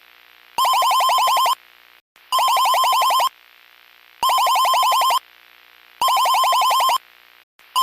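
Electronic emergency alert tone: bursts about a second long, each a rapid string of short falling chirps, repeating roughly every 1.8 seconds with short silent gaps.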